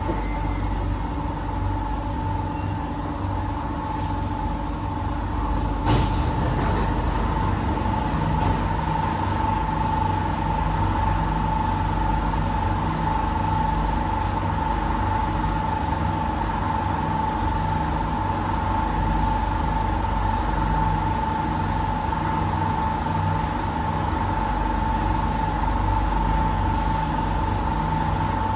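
Inside an SMRT C151B metro train: a steady high-pitched screech sounds throughout, the loud screeching this train is known for. A single knock comes about six seconds in, and from about eight seconds the train's low traction hum sets in as it pulls away.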